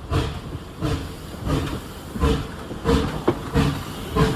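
Steam locomotive working hard up a grade, its exhaust chuffing in a steady beat of about three chuffs every two seconds.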